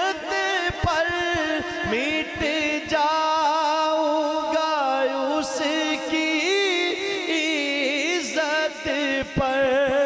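A man singing a devotional kalam unaccompanied into a microphone, drawing out long held notes that waver and glide between pitches.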